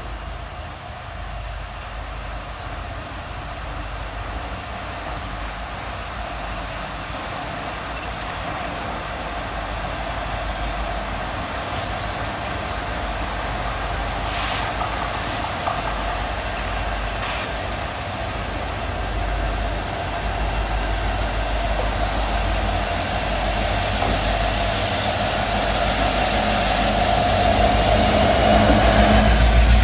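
Diesel freight locomotives come out of a tunnel toward the listener, their rumble growing steadily louder, with a steady high-pitched wheel squeal over it. The sound peaks as the lead locomotive draws alongside near the end.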